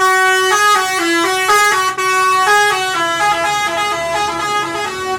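Tour bus's 'telolet' basuri musical horn playing a fast tune of short stepped notes, several a second, then cutting off suddenly at the end.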